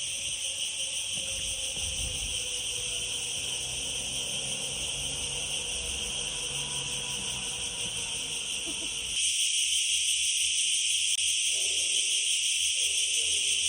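Dense, steady high-pitched insect chorus, which gets louder about nine seconds in.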